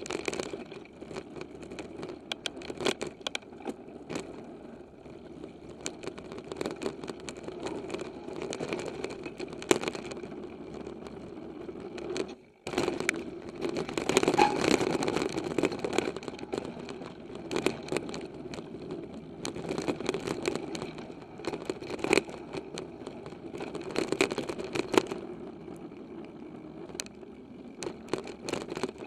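Giant XTC 2 hardtail mountain bike ridden over rough singletrack, heard from a handlebar-mounted camera: continuous rattling and sharp knocks from the bike over bumps, with tyre and wind noise. It drops out briefly about halfway through.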